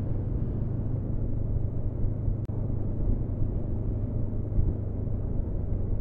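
Honda CB500F's parallel-twin engine running steadily under way, mixed with steady wind and road rumble. A brief click with a momentary drop in sound about two and a half seconds in.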